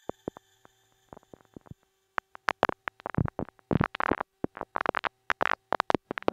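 Electronic soundtrack of irregular glitchy clicks and crackles, sparse at first and growing denser and louder, over a faint steady tone.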